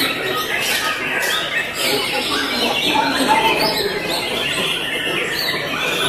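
White-rumped shamas (murai batu) singing in a contest, several birds at once: a dense, unbroken stream of overlapping chirps and whistled phrases.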